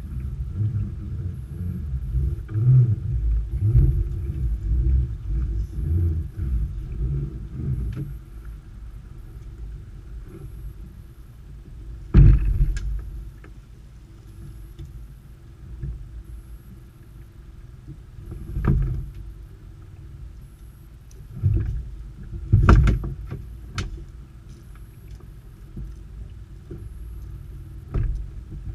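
A creel being hauled aboard a small open boat by hand: low rumbling for the first several seconds, then a handful of heavy thumps as the creel and its rope knock against the boat's hull and gunwale, the loudest about twelve seconds in.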